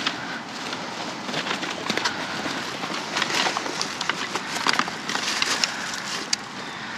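Rummaging through a pile of discarded household items by hand: irregular small clicks, knocks and rustles over a steady background hiss.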